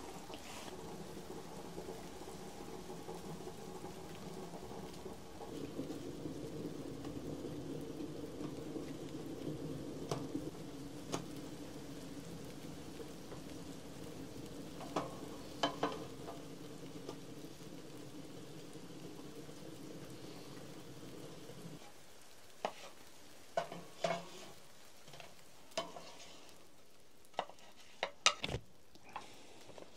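Food frying in a pan with a steady sizzle that stops about two-thirds of the way through, with scattered clicks and taps of utensils on the pan, more frequent near the end.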